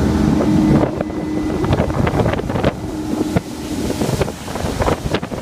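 2007 Malibu 247 LSV inboard wake boat running at speed, its engine tone under a dense rush of wind buffeting the microphone and water spray off the hull; the engine tone fades about three and a half seconds in.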